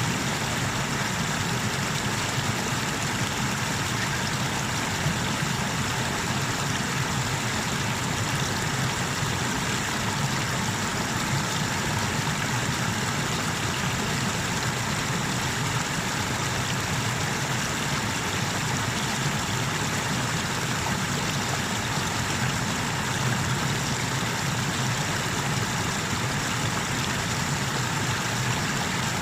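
Water of the Tanew river rushing steadily over a small waterfall and rapids, a constant full rumbling rush that does not change.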